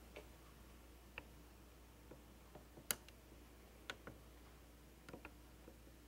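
Near silence: room tone with a low steady hum and a few faint, scattered clicks.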